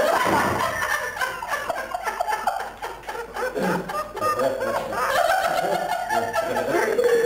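A group of people laughing together, the laughter easing briefly a little past halfway and then swelling again.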